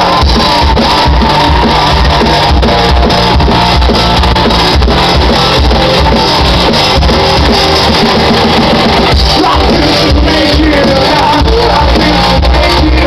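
Live rock band playing loudly over a club PA, with a steady beat in the low end and a male lead singer's voice at the start and again near the end.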